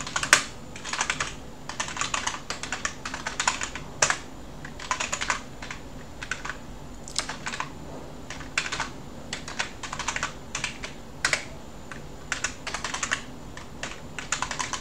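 Computer keyboard typing: quick keystrokes in irregular bursts with short pauses between, a few keys struck harder than the rest.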